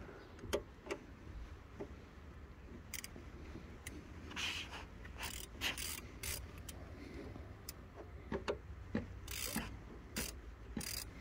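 Socket ratchet clicking in short, irregular runs as the front brake caliper's guide pin bolts are tightened, with occasional clinks of metal tools.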